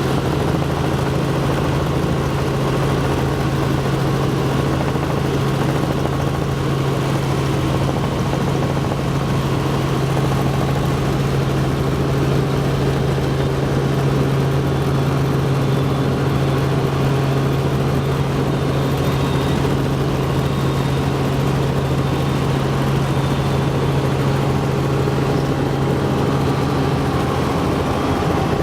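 Helicopter engine and rotor running steadily: a loud, constant low hum over an even roar. The hum changes about a second before the end.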